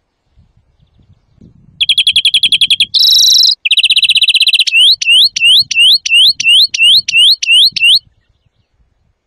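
European greenfinch singing loudly. After a pause comes a rapid trill, then a short harsh wheeze, another trill, and a run of about a dozen quick upswept whistled notes before it stops.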